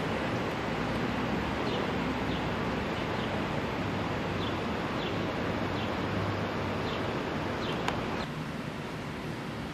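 Outdoor street ambience: a steady rushing noise of wind and distant traffic, with a small bird giving short falling chirps about every half second. The rushing drops a little near the end.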